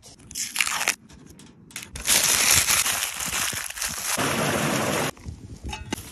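Aluminium foil crinkling and crumpling as it is folded by hand around a sausage burger, loud and continuous for about three seconds starting two seconds in.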